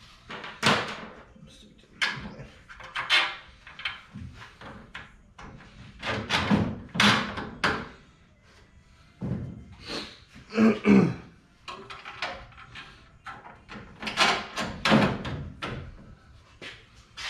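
A series of irregular thuds and bangs, about a dozen, each dying away over a fraction of a second.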